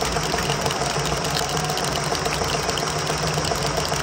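Steady, dense crowd noise from a packed stadium, with no breaks or single standout event.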